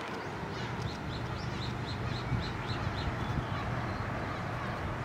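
A bird calling in a quick run of short, high, falling notes, about five a second, from about one second in to about three seconds in, over steady outdoor background noise.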